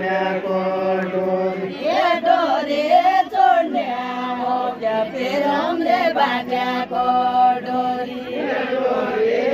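Men and women singing a Deuda folk song together without instruments, in long drawn-out chanted lines over a held low note.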